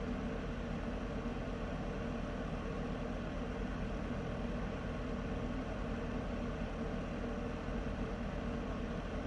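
Heater running steadily: an even, unbroken whooshing noise over a low hum.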